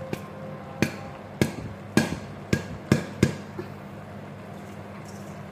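A wooden spoon knocking against an aluminium cooking pot of drained pasta: about seven sharp, unevenly spaced knocks, each with a brief metallic ring, stopping about three and a half seconds in.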